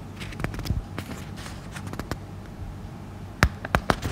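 Scattered light taps and clicks over a faint low hum, with a quick cluster of sharper knocks near the end.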